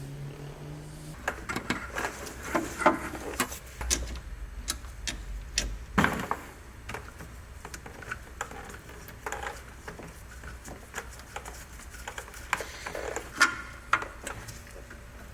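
Irregular clicks and light metallic taps of hand tools and parts being handled while a power steering pump's fittings are tightened, with a sharper knock about six seconds in and another near the end.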